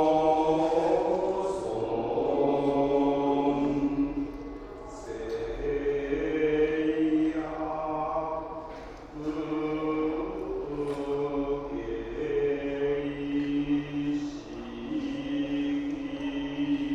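Buddhist monks chanting together in long held tones, a low voice line under higher ones, the pitch shifting every second or two.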